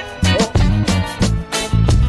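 Background music with a steady beat: regular drum hits over a heavy bass line, with gliding melody notes on top.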